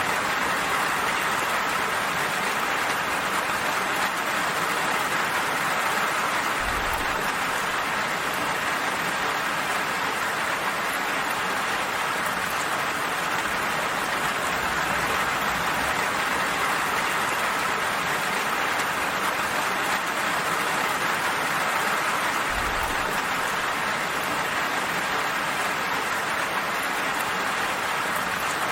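Steady rain falling, an even hiss that holds constant without breaks or individual drops standing out.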